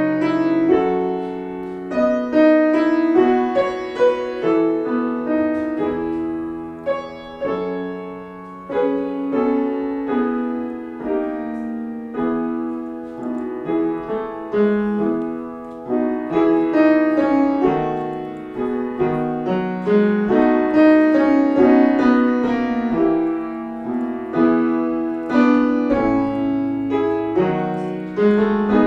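Solo piano playing a gentle, lyrical piece in E major: a singing melody over a flowing accompaniment, growing softer about six to eight seconds in.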